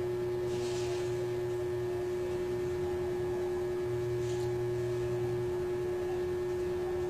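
A steady hum holding one fixed pitch, with a fainter low drone and light hiss underneath: room tone.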